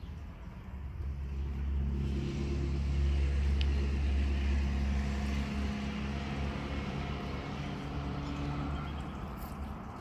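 A motor vehicle's engine going past: a low hum that swells over the first couple of seconds, is loudest about three seconds in, then slowly fades away.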